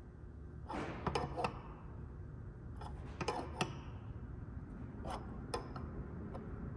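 Light metallic clicks and taps of a wrench and a dial-indicator setup against a K-series transmission case, made while a shaft is worked and its play is measured for shimming. The clicks come in small groups about a second in, around three seconds in, and near five seconds in.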